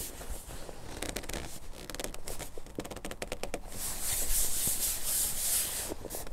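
Rustling and scraping close to the microphone: a run of small clicks and scratches, then about two seconds of louder hissing rustle.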